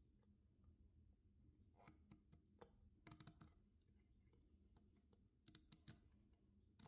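Faint, scattered metallic clicks of a 1925 Thales mechanical calculator's setting levers being slid into their notches as a number is entered. There are a few single clicks, then a small cluster about three seconds in and another near the six-second mark.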